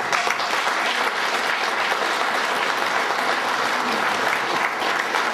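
A room audience applauding steadily with many hands clapping, at the end of a speech.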